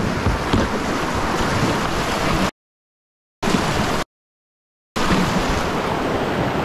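Whitewater rapids rushing close around a kayak: a loud, steady noise of churning water. It cuts out to dead silence twice for under a second each, about two and a half and four seconds in.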